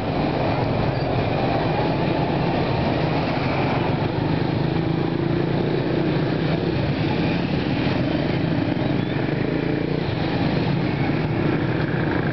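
Busy street traffic of motocarros (three-wheeled motorcycle taxis) and motorcycles, their small engines running in a steady, continuous drone as they pass.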